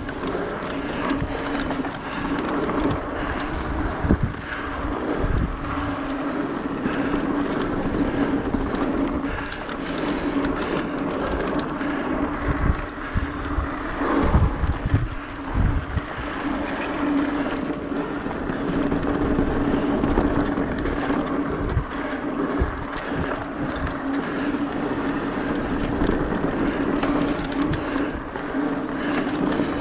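Mountain bike ridden fast along dirt singletrack: tyre noise on dirt and leaves with wind on the microphone, a steady hum that drops out now and then, and a cluster of knocks and rattles over bumps around the middle.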